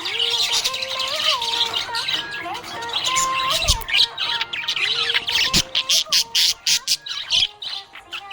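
Budgerigars chirping and chattering in quick, busy runs of short notes, growing more rapid and clipped in the second half.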